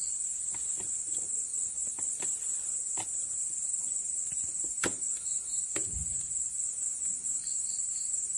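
Small metallic clicks and taps as the spring-loaded scissor gear of a Bajaj Pulsar balancer is twisted by hand and pushed into mesh, its two halves loaded against each other; the sharpest click comes about five seconds in, followed by a dull knock. A steady high-pitched chirring runs underneath.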